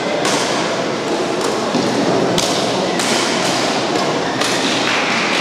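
Badminton rackets striking a shuttlecock in a rally, sharp hits about a second apart over a steady hall noise.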